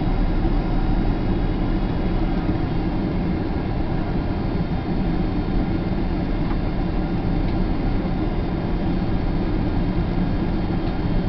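Steady cabin noise inside a Boeing 767-300ER on its landing approach: the continuous rush of airflow and the jet engines' drone, with a faint steady whine above it.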